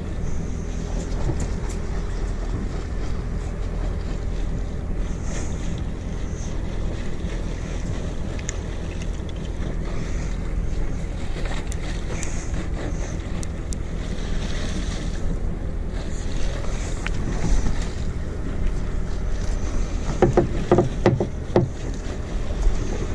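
Steady low rumble of a boat's idling engine with wind on the microphone. A few sharp knocks come near the end as a hooked fish is swung aboard.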